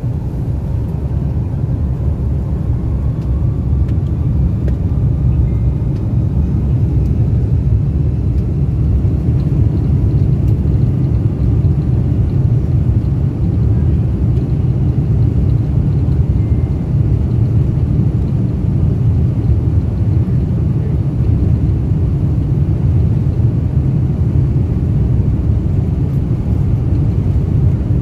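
Steady low rumble of a jet airliner heard from inside the cabin as it rolls along the ground. A faint engine whine rises in pitch over the first few seconds, and the rumble grows a little louder.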